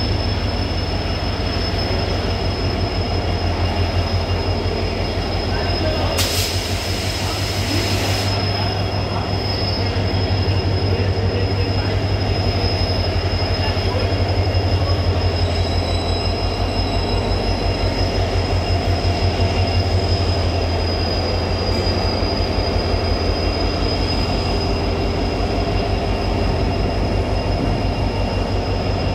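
Indian Railways diesel locomotives hauling a container freight train slowly past, their engines running with a steady low throb and a steady high whine over it. A hiss lasting about two seconds comes about six seconds in.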